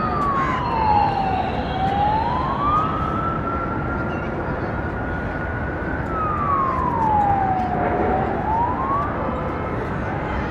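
A siren whose pitch sinks and climbs back up twice, holding high in between, over steady background noise.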